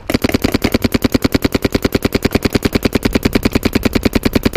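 Electronic paintball marker, a Planet Eclipse Geo 3.5, firing a rapid, even stream of shots at about a dozen a second.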